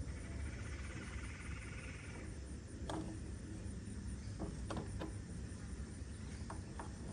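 A scrench working the blade nut on a Stihl string trimmer's brush-cutter head: a handful of short, sharp metal clicks and taps scattered through the middle and latter part. A buzzing trill is heard for the first two seconds or so.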